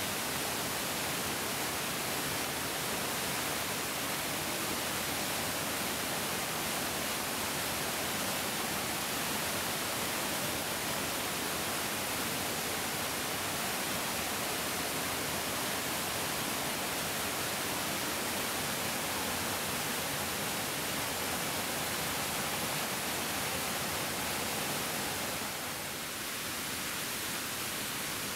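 Mountain stream rushing over rocks: a steady, dense rushing of water, dipping slightly in level near the end.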